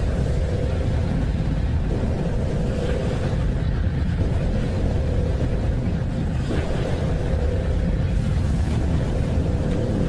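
Space sound presented as Neptune's moon Triton: radio-wave emissions made audible. A dense, steady low rumbling drone with a faint steady hum, and hissy swells that rise and fade three times.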